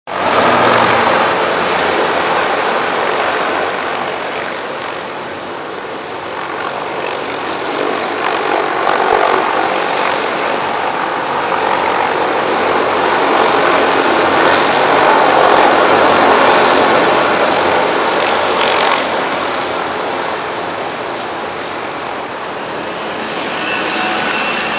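Low-flying Black Hawk military helicopters passing overhead, a dense rush of turbine and rotor noise that swells, is loudest about two-thirds of the way through, then drops away.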